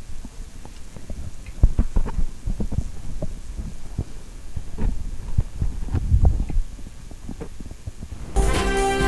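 Irregular soft low thumps and bumps at uneven intervals over a faint hum, then music starts near the end.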